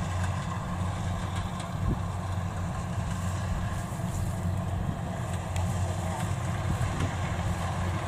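Kubota DC93 combine harvester's diesel engine running steadily under harvesting load as the machine cuts rice, a constant low drone with the threshing gear's hum above it.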